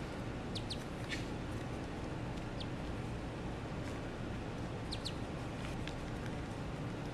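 Ducklings peeping: a handful of short, high peeps, a few coming in quick pairs, over a steady background hiss.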